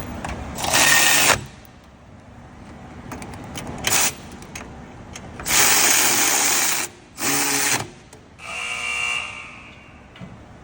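Power tool running in about five short bursts, run-down and tightening the two 18 mm caliper bracket bolts on a rear brake; the last burst has a steady higher-pitched whine.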